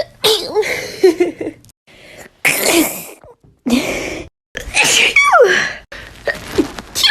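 Several sneezes one after another, each a sharp burst of breath, some with a voiced "achoo" that falls in pitch, separated by abrupt breaks.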